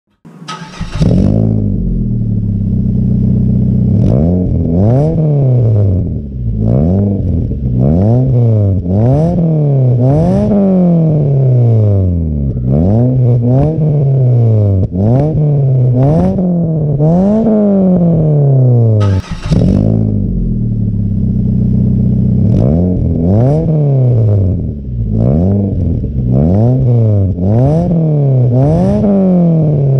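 2005 first-generation Mazda 3's four-cylinder engine through an aftermarket catback exhaust, started up and then revved over and over. Each rev rises and falls in under two seconds, and the needle reaches about 4,000 rpm. About 19 s in it is started again and revved the same way, heard first from inside the cabin and then from behind the exhaust tip.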